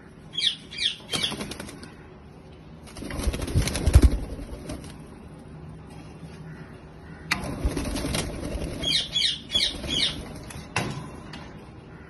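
Indian ringneck parakeets flapping their wings in flight, in bursts, with short shrill calls: three near the start and four more about nine seconds in.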